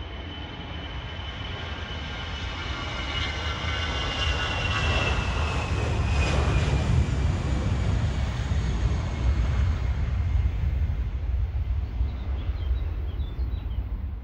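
Airliner's engines passing close by, building to a peak about halfway through and then holding, with a high whine that slowly falls in pitch as it goes past.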